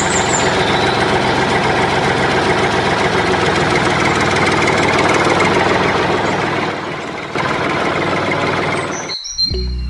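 Tractor engine running steadily, then cutting off suddenly about nine seconds in.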